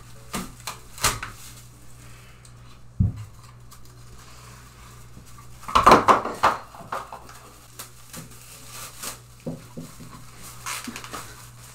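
Blue painter's tape with an attached plastic masking drape being handled and pulled off the roll: scattered clicks and knocks with a crinkling rustle of plastic, a dull thump about three seconds in, and a louder rustle about six seconds in.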